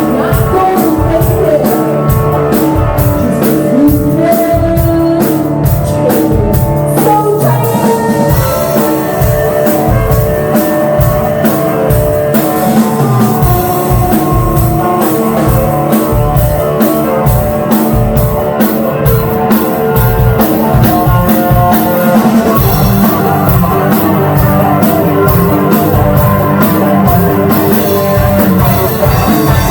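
Rock band playing live, with a steady drum-kit beat and guitars.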